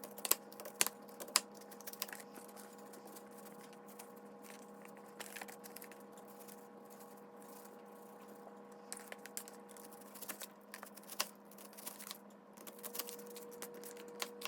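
Knife chopping an onion on a cutting board: irregular sharp taps, over a steady hum.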